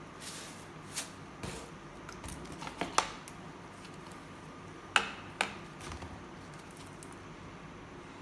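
Plastic chemical jars and bottles handled and set down on a table: a few separate sharp knocks and clicks, the loudest about three seconds and five seconds in.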